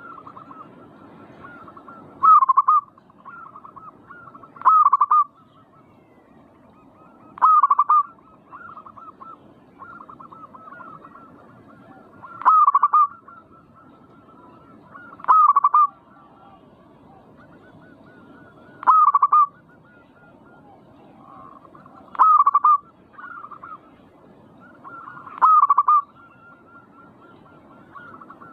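Zebra dove (perkutut) song: a loud cooing phrase about every three seconds, eight times, with softer rolling coo notes in between.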